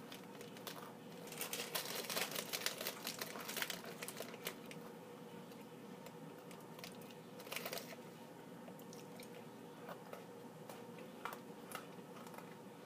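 Faint crunching and chewing of chocolate Pocky biscuit sticks being bitten, with crinkling of the plastic wrapper; scattered small crunches and clicks, busiest in the first few seconds.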